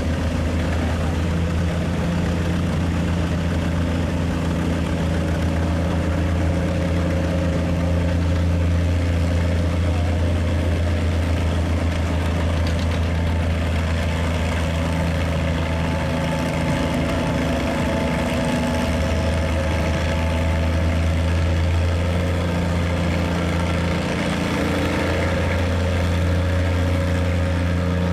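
Farm stock pulling tractor's engine running hard and steady as it pulls the weight sled, its note wavering briefly about two-thirds of the way through.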